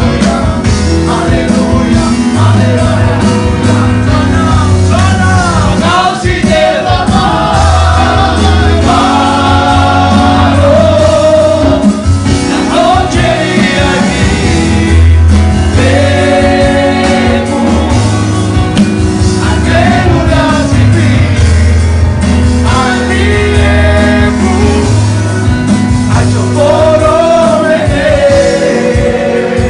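Men singing a gospel worship song to electronic keyboard accompaniment, with sustained bass notes under the sung melody.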